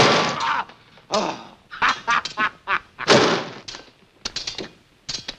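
Cream pies splatting on faces in a slapstick pie fight. The loudest splat comes at the start and another about three seconds in, with a quick run of short cries between them.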